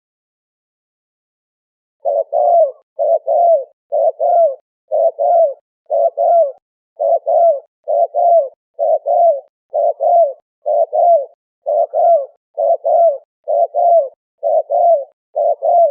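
Spotted dove (terkukur) cooing: short, low coos in quick pairs, repeated about once a second, starting about two seconds in after dead silence.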